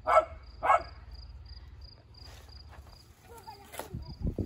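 A dog barking twice in quick succession, against a cricket's steady high chirping. A few low thumps follow near the end.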